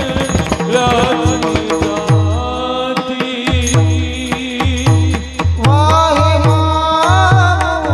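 Marathi kirtan chal: a voice singing a devotional melody with ornamented, gliding phrases over a regular drum beat, held accompanying tones and sharp cymbal-like strikes.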